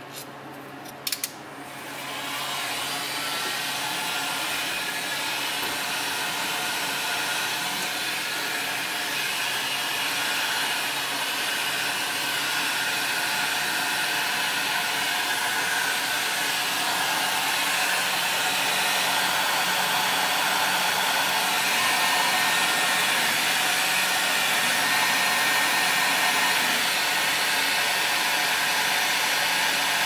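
A few light clicks, then an electric heat gun starts about two seconds in and blows steadily. It is warming the brittle plastic wiring connectors on an automatic transmission's valve body so they can be unplugged.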